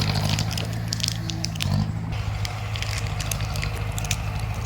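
Bulldozer diesel engine running steadily, its pitch shifting briefly about two seconds in, with many scattered sharp cracks and clicks over it.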